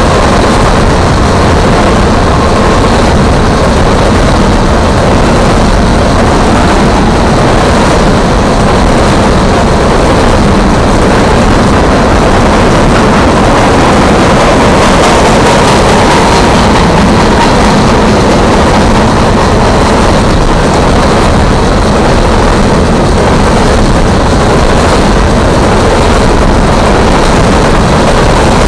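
Coal hopper cars of a freight train rolling past a grade crossing: loud, steady noise of steel wheels running on the rails.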